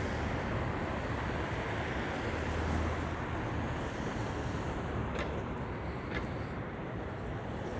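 City street traffic: a steady wash of passing vehicles with a low rumble, and two light ticks about five and six seconds in.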